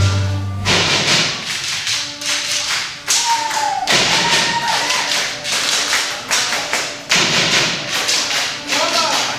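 Dancers' wooden sticks clacking and thudding in rhythm along with music, each stroke echoing in the hall.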